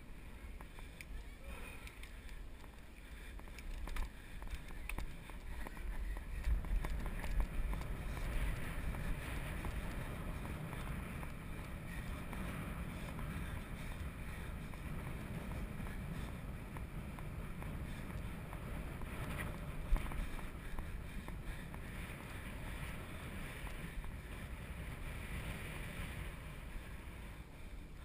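Wind rumbling on a bicycle-mounted GoPro's microphone, mixed with tyre and road noise from the moving bike. It swells for a few seconds early on, with scattered small clicks and one sharp knock about 20 seconds in.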